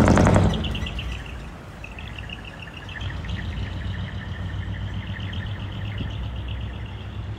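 Heavy decorated truck's loud exhaust, very loud at first and falling away quickly within the first second or so as the truck drives off, leaving a low engine rumble. Small birds chirp repeatedly over it.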